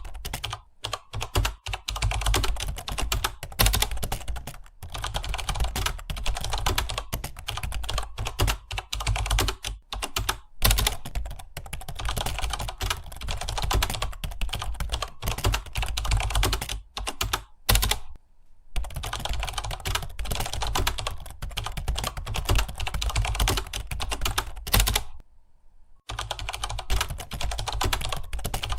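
Fast typing on a computer keyboard, a dense run of key clicks that breaks off briefly twice.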